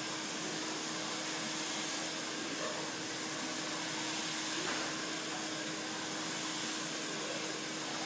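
A hair dryer running steadily: an even blowing hiss with a faint low hum underneath.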